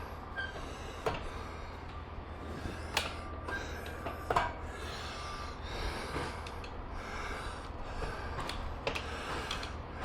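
Scattered light clicks, knocks and rubbing of metal parts being handled while a motorcycle's rear wheel is removed, over a steady low hum.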